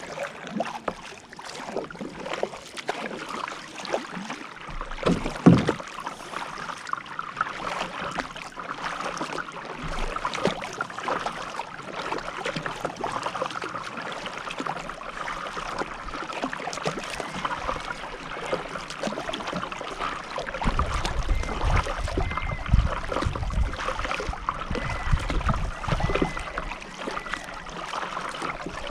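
Kayak paddling: paddle blades dipping and splashing, with water dripping and washing along the hull, and one sharp knock about five seconds in. A low rumble joins in for several seconds past the two-thirds mark.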